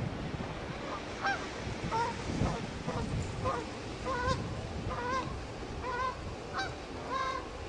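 Gulls calling over and over, short honking calls about once or twice a second, over a steady wash of surf on rocks.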